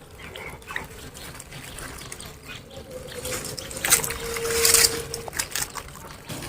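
Water trickling and splashing in uneven bursts, loudest about four to five seconds in.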